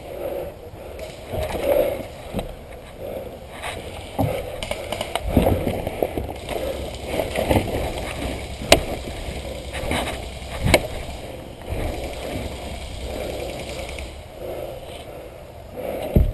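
Rustling and scuffing of a player moving with his gear through an airsoft field, with scattered soft knocks and two sharp snaps about nine and eleven seconds in.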